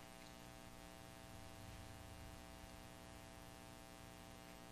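Near silence, with only a faint steady electrical hum: a buzzy tone with many evenly spaced overtones that does not change.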